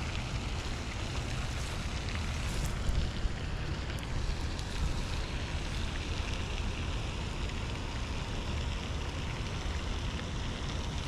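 Steady low rumble of wind buffeting the microphone, with a fainter hiss above it.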